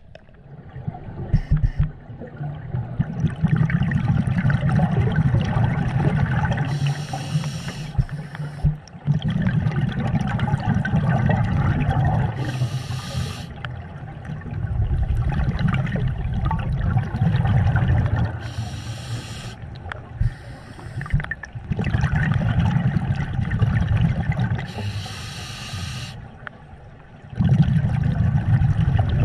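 Scuba diver breathing through a regulator underwater, heard from the diver's own camera: short hissing inhalations and longer rumbling, bubbling exhalations, about five breaths in a steady rhythm.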